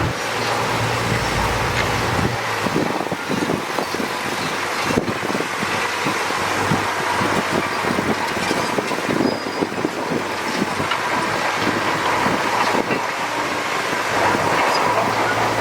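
Heavy earthmoving machinery running, with dense irregular rattling and clattering from about two seconds in until near the end. A low engine drone sits under it and grows stronger again near the end.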